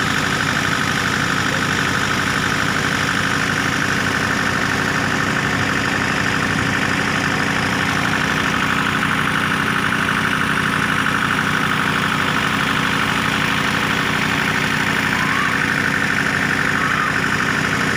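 Mahindra 475 DI tractor's four-cylinder diesel engine running steadily, driving a water pump, with a steady high whine over the engine's fast, even beat.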